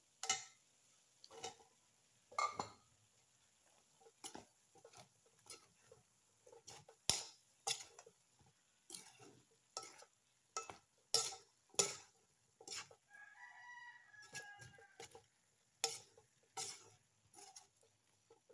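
Metal spatula scraping and knocking against a nonstick wok at an uneven pace as diced pork, carrots and potatoes are stirred. Around the middle, a pitched call lasts about two seconds.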